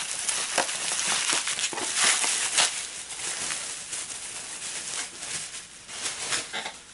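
Plastic bubble wrap crinkling and crackling as it is handled and pulled open by hand. The crackling is busiest in the first few seconds, then thins out.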